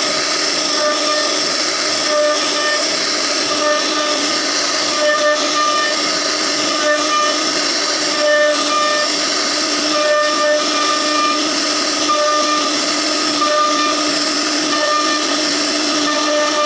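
CNC router spindle running with its bit carving a relief pattern into a wooden board: a steady whining hiss with pitched tones that swell and fade as the cutter moves through the wood.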